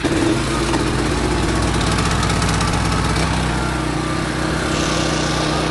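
Philking PK1700 1 kVA gasoline generator's small engine catching on a recoil pull with the choke set, then running steadily at an even level.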